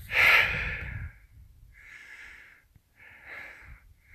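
A person breathing close to the microphone: a loud sighing exhale at the start, then three quieter breaths about a second apart.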